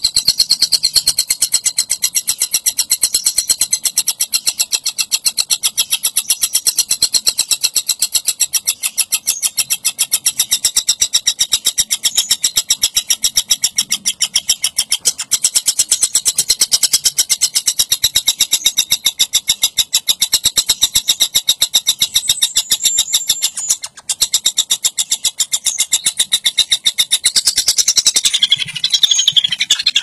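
Young tengkek buto kingfisher calling in a fast, high-pitched rattle of many pulses a second, unbroken, shifting in pattern near the end.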